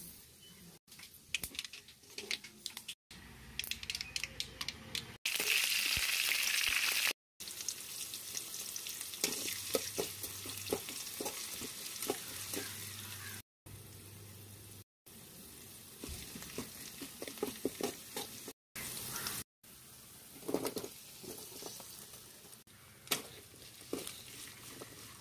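Hot oil sizzling in a metal pan as a tempering, then chopped onions, green chillies and curry leaves fry, with a metal spatula scraping and clicking as it stirs. About five seconds in there is a loud burst of sizzling that lasts about two seconds.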